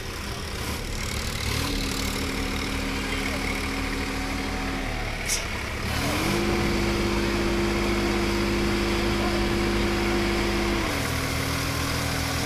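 Sonalika tractor's diesel engine under load, straining to pull free of deep paddy-field mud: the revs step up about a second and a half in, dip, rise higher around six seconds, and ease back near the end. A short sharp tick a little past five seconds.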